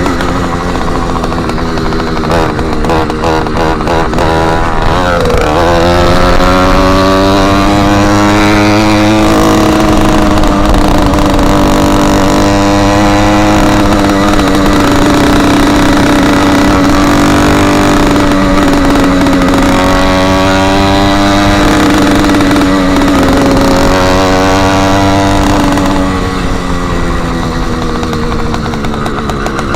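Motorized bicycle's small engine running loud and raw with the tip of its exhaust removed. It revs up about five seconds in, holds a steady speed with small rises and falls in pitch, then eases off near the end.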